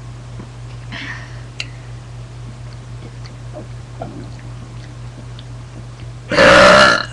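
A girl burping once, loud and pitched, lasting a little over half a second near the end; before it there are only faint small clicks.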